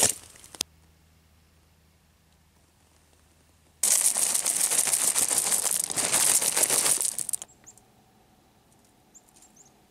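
Close, dense crunching and rustling: a short spell in the first half second, then a longer one of about three and a half seconds in the middle, with near silence between. Near the end come a few faint, high bird chirps.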